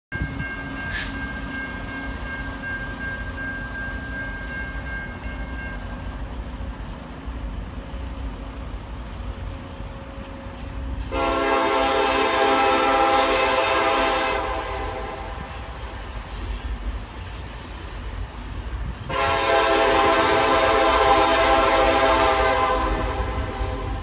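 Norfolk Southern locomotive air horn sounding two long blasts, each several notes sounding together. The first comes about 11 seconds in and lasts about three seconds; the second starts around 19 seconds and is held about five seconds, over a steady low rumble.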